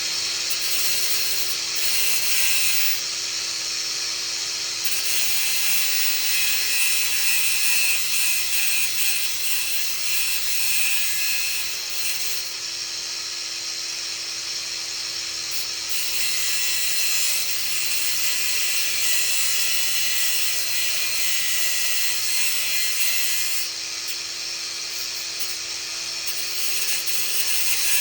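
A power tool running steadily while cutting down a piece of metal door hinge held in a vise, the cutting noise swelling and easing every few seconds as it bites.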